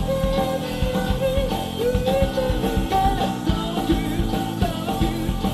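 Live rock band playing: electric guitars, bass and drums with a lead singer's melody over them.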